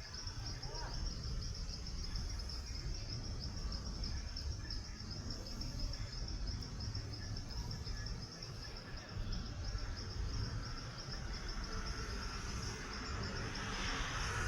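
Night-time insect chorus in Amazon forest: a steady, fast-pulsing high-pitched trill, over a constant low rumble. Near the end a broader hiss swells up briefly.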